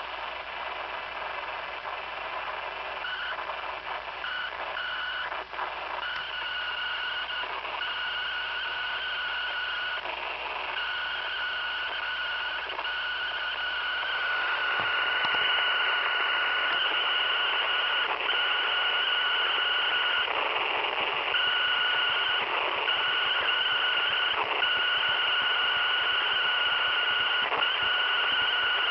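A radio with a broken tuner and a damaged capacitor giving off static hiss with a steady high whistle over it. The whistle drops out briefly now and then, and everything gets louder about halfway through.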